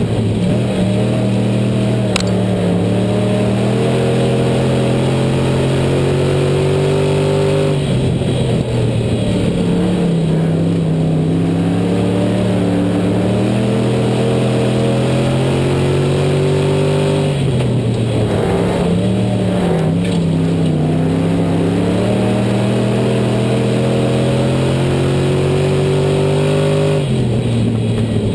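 In-car sound of an IMCA Southern Sportmod race car's V8 running hard. The revs drop sharply as the driver lifts for the turns and climb steadily back under power, roughly every nine seconds.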